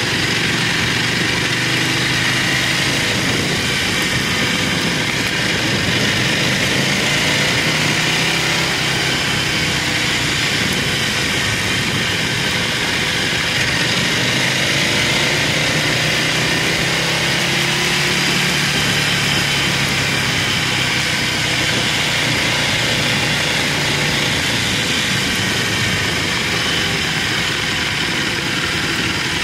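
Buell motorcycle engine running under way, its pitch rising and falling as the throttle changes, over a steady rush of wind and road noise.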